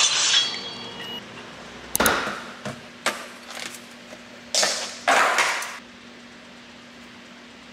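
Knocks and clicks of a plastic ice cream tub being handled and opened, then a metal ice cream scoop scraping through the frozen ice cream twice.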